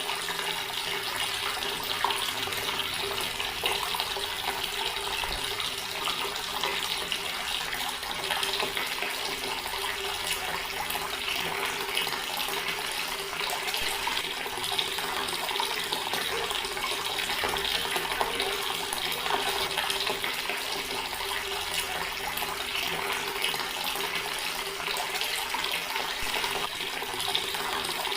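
Water running steadily from a tap and splashing into a stone basin: a continuous, even trickling splash.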